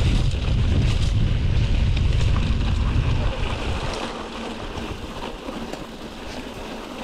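Wind buffeting the microphone over tyre and trail noise from a mountain bike on the move, with scattered clicks and rattles. The heavy low rumble drops away about four seconds in.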